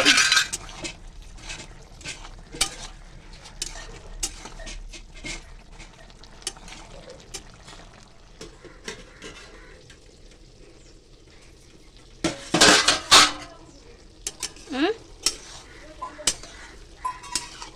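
A spoon clinking and scraping against a cooking pan as a vegetable curry is stirred: scattered clicks throughout, with a dense run of loud clatter about twelve seconds in.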